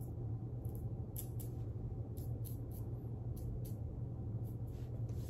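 Short scratchy strokes of a Carbon CX safety razor with a Nacet blade cutting stubble, about a dozen quick strokes at irregular spacing, taken over only the residual slickness of the lather. A steady low hum runs underneath.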